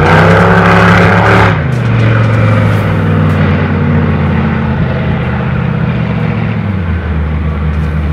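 A speedboat's engine running hard across the water, its pitch rising through the first second and a half, then dropping and holding steady.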